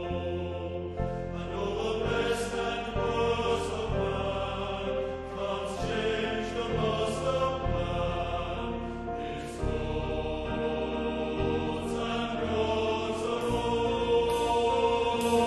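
A Salvation Army songster choir singing a slow worship song, the voices holding sustained chords.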